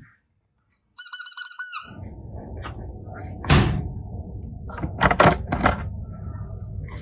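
A quick run of about seven high-pitched squeaks lasting under a second, followed by a low rumbling noise with several thuds.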